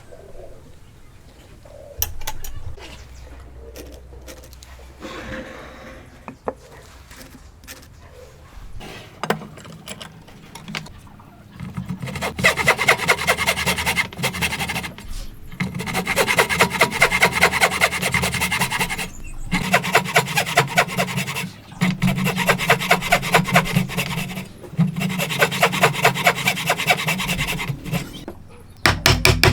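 A hand tool working wood in fast, repeated scraping strokes, in runs of about three seconds with short pauses between them, starting about twelve seconds in. Before that, quieter scattered handling sounds and knocks.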